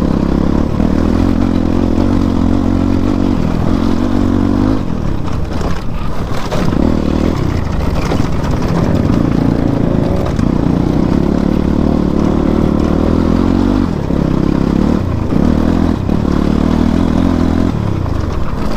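Motorcycle engine pulling under changing throttle while ridden over a rough off-road track, easing off briefly a few times and picking up again.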